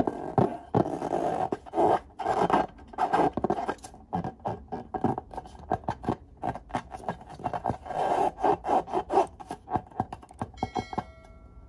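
Hands squeezing and rubbing a filled latex balloon, making irregular scraping and squishing strokes in quick runs with short pauses. A short chime sounds near the end.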